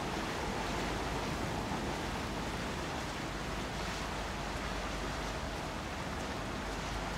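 Steady rush of wind and sea water from a moving coastal ship under way, over a low rumble.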